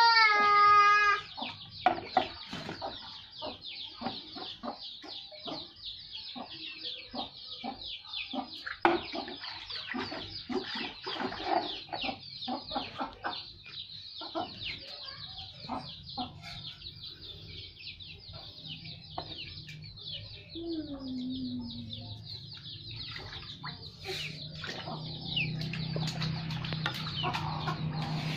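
Chickens clucking close by, with many short high calls running on throughout, over splashing and scooping of water in a plastic tub. A low steady hum comes in near the end.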